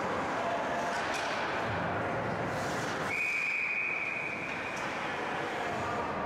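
Ice hockey referee's whistle blown once, a steady shrill blast of about a second and a half starting about three seconds in, stopping play after a scramble at the net, over the steady background noise of the rink.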